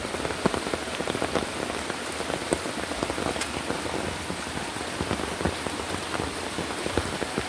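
Steady rain falling, dense with close raindrop ticks, over the rush of a river in flood.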